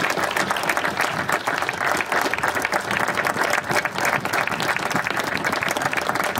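A crowd of guests applauding, dense and sustained clapping without a break.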